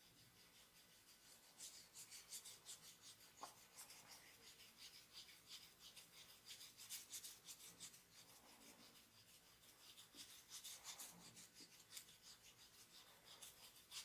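A masseur's hands rubbing briskly during a massage, heard as a fast run of short, faint, scratchy strokes that starts about a second and a half in.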